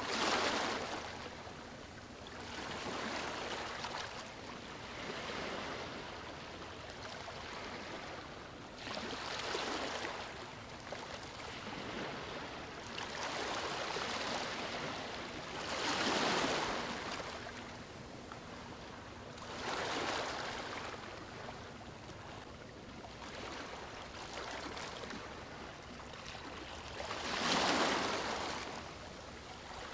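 Ocean waves washing in, one swell of surf after another every few seconds, the loudest breaking near the middle and again near the end.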